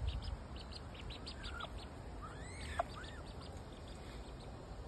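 Ducklings peeping: a quick run of short high chirps, with a few longer arching, falling peeps in the middle.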